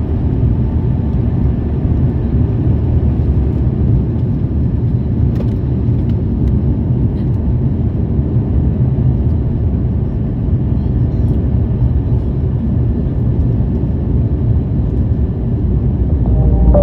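Steady low rumble of an Airbus A350 airliner heard from inside the passenger cabin, engine and airflow noise with no rise or fall.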